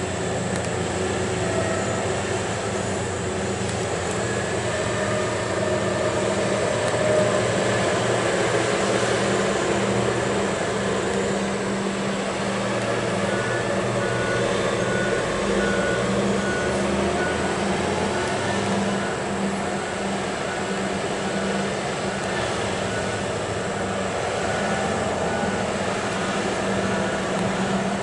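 Diesel engines of a Liebherr R 996 mining excavator and a haul truck running steadily as a low hum. From about halfway through, a reversing alarm beeps at an even pace.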